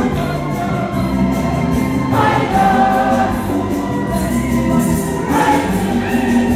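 Church choir singing a gospel song over a steady low accompaniment, the voices swelling about two seconds in and again about five seconds in.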